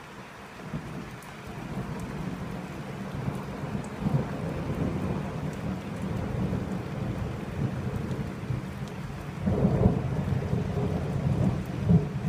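Thunder rumbling over steady rain. The low rumble builds about half a second in and swells loudest about three-quarters of the way through, with another surge near the end.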